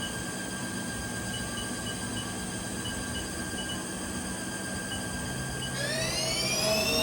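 Haas TL-2 CNC lathe spindle running steadily at 1000 RPM with a whine made of several fixed tones. About six seconds in, the whine rises in pitch and gets louder as the spindle speeds up toward the machine's maximum speed.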